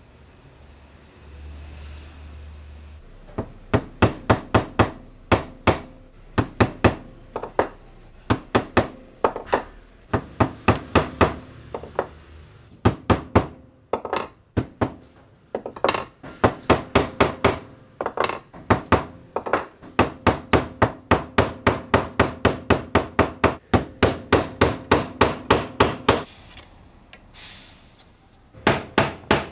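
A chisel being struck in rapid runs of sharp blows, chopping square mortises into a wooden board. The knocking stops for a couple of seconds near the end, then starts again.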